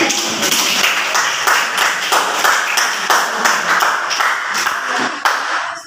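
A roomful of students clapping, a round of applause that dies away just before the end.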